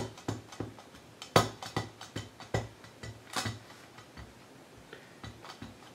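Clear acrylic stamp block being patted repeatedly onto a black ink pad to ink up the clear stamps: a run of light, irregular clicks and taps, a few a second.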